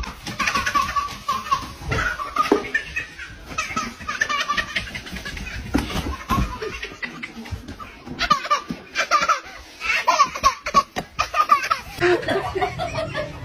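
A baby laughing hard, in repeated bursts of belly laughter with short breaths between them.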